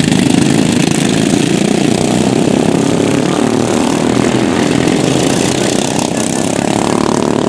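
Engines of several racing ride-on lawn mowers running together as they lap a grass track. Near the end one engine's pitch rises and falls.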